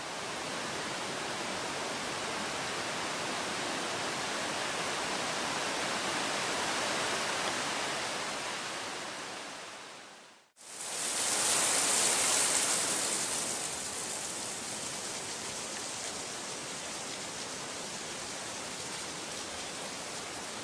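Mountain river rushing over rapids and boulders, a steady hiss of water. About ten seconds in it fades out and comes straight back, louder and brighter for a couple of seconds before settling.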